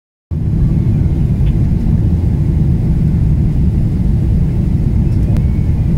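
Jet airliner cabin noise on final approach: a loud, steady low rumble of engines and airflow heard from a window seat over the wing, starting a moment in. A faint click comes near the end.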